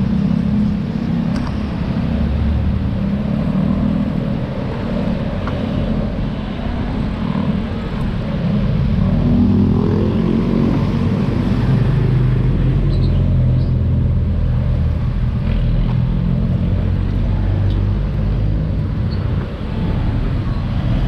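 Steady motor-vehicle road noise, with an engine hum that rises in pitch about halfway through, as if accelerating.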